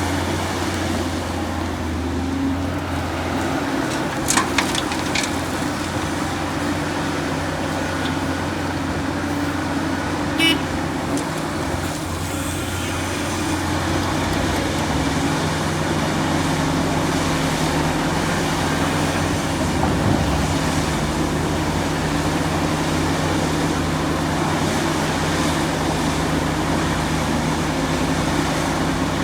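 Heavy excavator's diesel engine running steadily, with a few sharp metallic clanks about four seconds in and another about ten seconds in. The engine note changes about fourteen seconds in.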